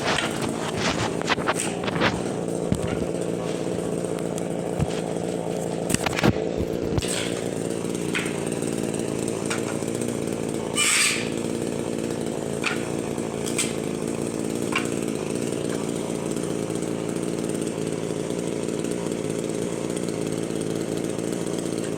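A small engine running steadily at an even pitch, with scattered sharp clicks in the first several seconds and a short hissing burst about eleven seconds in.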